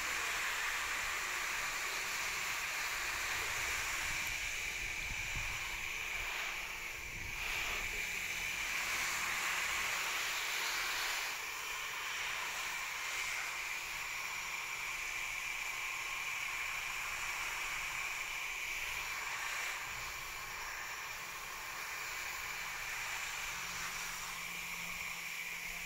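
Water spraying from a garden hose's shower-head nozzle onto leafy plants and soil: a steady hiss that swells and eases a little as the spray is moved.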